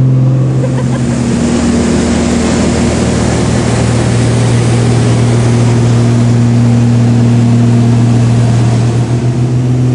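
Light propeller aircraft's engine droning steadily in flight, heard from inside the cabin, with a constant low hum under a loud rush of air.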